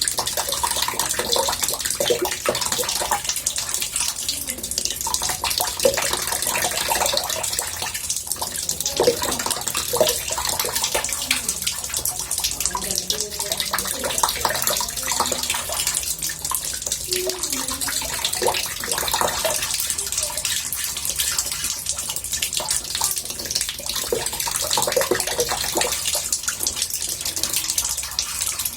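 Water running into a bathtub: a steady murmuring splash, with small bubbling gurgles through it.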